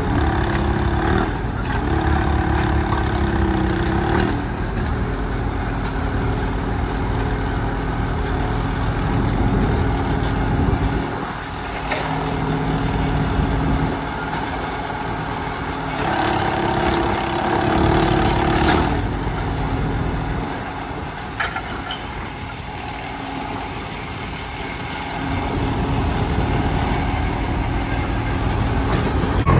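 Old crawler crane digging with a clamshell bucket: its engine runs steadily, rising and falling in loudness as it takes up and lets off load, with a few sharp knocks in the middle.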